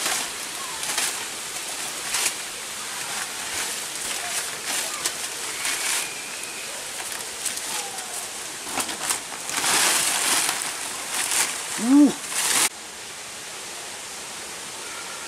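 Dry banana leaves and stems rustling and crackling in irregular strokes as a man handles the plants, over a steady background hiss. About twelve seconds in a man gives a short voiced exclamation that rises and falls, and the sound cuts off abruptly just after.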